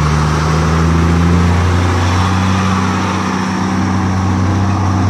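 Military 6x6 cargo truck's engine running with a deep, steady note as the truck rolls slowly past. Its pitch rises a little over the first second or so, then holds.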